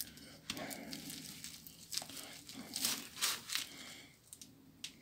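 Irregular small plastic clicks and rustling as a Motorola RAZR V3 flip phone is handled: a BR50 battery is pressed into it and its keypad buttons are pressed to switch it on.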